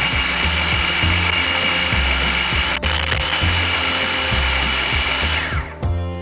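Electric kitchen mixer running steadily at high speed, beating a flour-and-egg batter, then switched off about five and a half seconds in, its whine falling as the motor winds down. Background music with a low bass line plays underneath.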